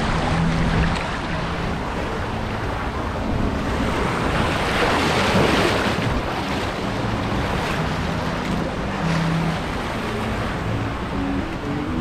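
Water rushing and splashing along a fiberglass water slide under a sliding rider, swelling loudest about five seconds in as the rider shoots down into the water-filled runout channel, then churning water as the ride slows.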